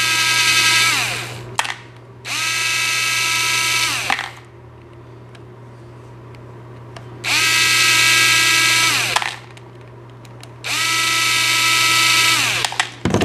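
Cordless electric screwdriver backing out the back plate screws of a small nitro model engine: four separate runs of whirring, each about two seconds long, the pitch dropping as the motor winds down at the end of each, with small clicks between runs.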